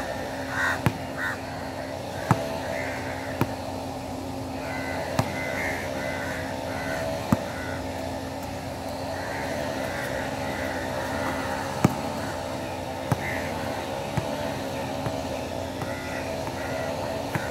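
A basketball bouncing on a hard outdoor court: single sharp smacks spaced one to four seconds apart, the loudest sounds present. Under them runs a steady background hum.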